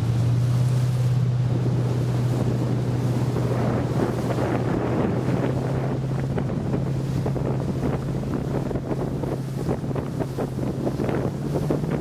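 Outboard engine of a rigid inflatable speedboat running at a steady pitch, with wind buffeting the microphone and water rushing and splashing along the hull. The engine note rises a little near the end.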